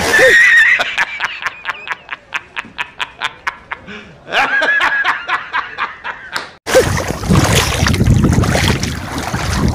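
A man's loud staccato laugh, the J. Jonah Jameson laughing meme: quick ha-ha-ha pulses, about five a second, slowing down, then a longer laugh. About two-thirds of the way through it cuts off abruptly to water splashing and wind on the microphone as a woman wades through a flooded rice paddy.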